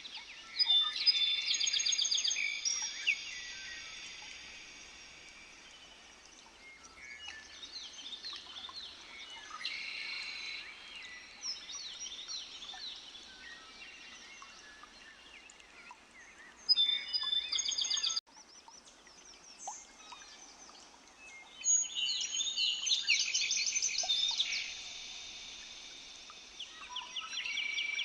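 Songbirds singing in outbursts of fast, high trills and chirps a few seconds apart, over a faint steady background hiss. The audio cuts out abruptly for a moment about two-thirds of the way through.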